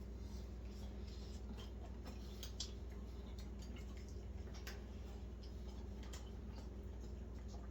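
A person eating chicken wings: small wet mouth clicks and smacks, scattered and irregular, over a steady low hum.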